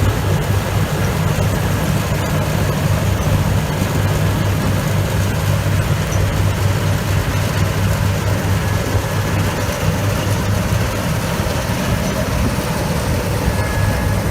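Combine harvester engine running steadily, a deep even drone.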